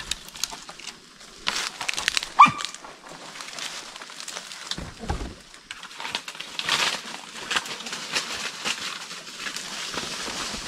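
Dry leaves and brush crackling and rustling underfoot in forest undergrowth, with a short high-pitched animal yelp about two and a half seconds in.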